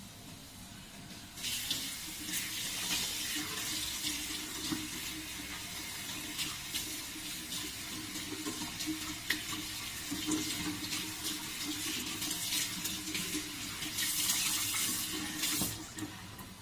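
Water running from a tap and splashing while hair is washed. It starts about a second and a half in, with small splashes throughout, grows louder near the end and then cuts off.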